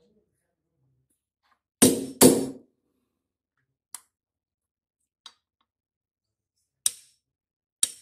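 Hammer blows on a ball bearing, driving it into the bearing housing of an automatic washing machine tub: two heavy blows about two seconds in, two light taps, then two sharp strikes near the end.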